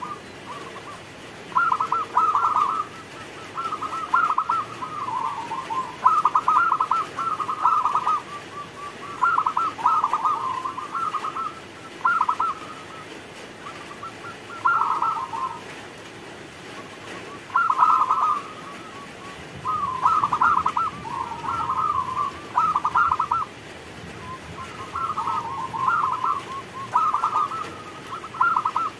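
Zebra dove (perkutut) cooing: rapid, rolling staccato coo phrases of about a second each, repeated every one to three seconds.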